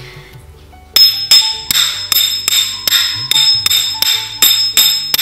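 Nattuvangam cymbals, a small brass cymbal struck against a cast-iron one, played in a steady beat of ringing metallic clinks about three a second, starting about a second in. They are beating out the tala, the rhythm that leads a Bharatanatyam dancer.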